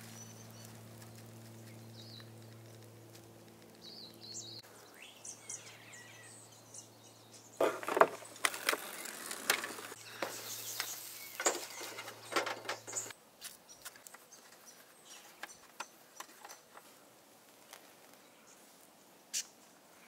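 A low steady hum with a few faint bird chirps, then a run of sharp knocks and scrapes: a spatula and frying pans clattering on a camp stove while pancakes cook.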